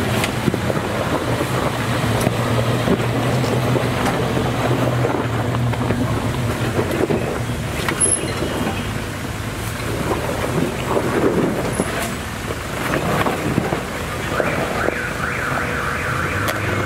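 Off-road vehicle engine running with a steady low hum, over wind noise on the microphone; a single sharp knock about eight seconds in.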